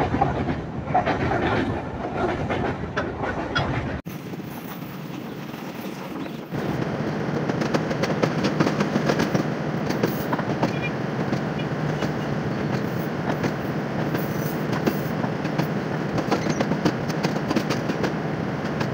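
Pakistan Railways passenger train running, heard from the open door at the rear of the train: a steady rumble of wheels on the track with a continuous fine clatter over the rail joints and points.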